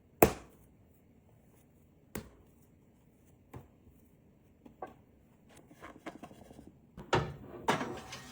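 A sharp knock, then single lighter taps and clicks every second or so, growing busier with clatter and rustling near the end: objects being handled and set down.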